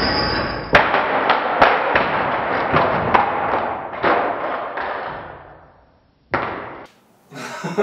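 Rope and hoist straining under load with a high whine, cut off about a second in by a sharp crack as two wood blocks glued with Liquid Nails construction adhesive break apart. A run of knocks and clatter from things shaken down from the ceiling follows and fades over several seconds, with one more thud near the end.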